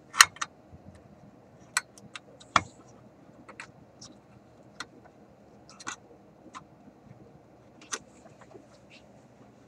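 Irregular small metallic clicks and taps from parts of a tube radio's FM tuning-slug mechanism, with its springs, being worked into place by hand; the sharpest knocks come in the first three seconds.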